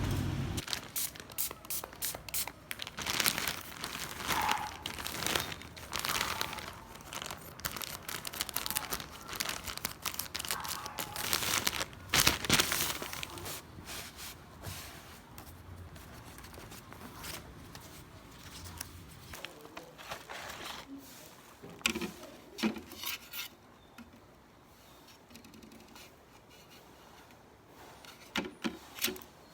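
Crinkly material being handled: rustling, crinkling and tearing sounds with scattered clicks and scrapes, dense in the first half and sparser and quieter in the second.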